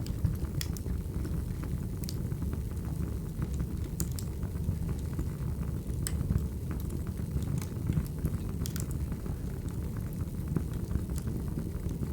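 Firewood burning: a steady low rumble with sharp crackles and pops scattered irregularly through it.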